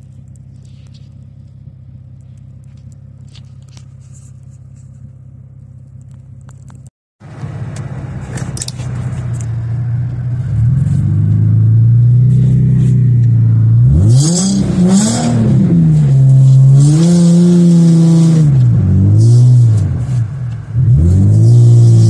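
Nissan 350Z's 3.5-litre V6 running steadily at low revs for about seven seconds, then after a brief cut it is much louder, heard inside the cabin, revving up and down over and over as the rear-wheel-drive car is driven through deep snow.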